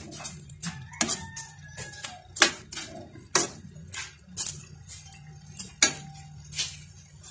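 Metal slotted spoon clinking and scraping against a nonstick wok while stirring rice and chicken in broth, a sharp click every half second or so, the loudest about a second and a half and six seconds in, over a steady low hum.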